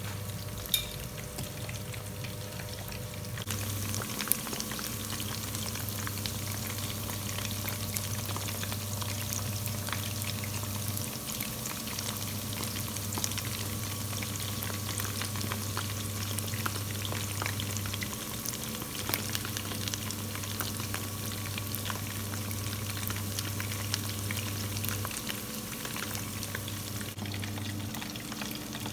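Battered chicken feet frying in hot oil: a steady sizzle full of small crackles, with a couple of sharp knocks early on. A low hum cuts in and out several times underneath.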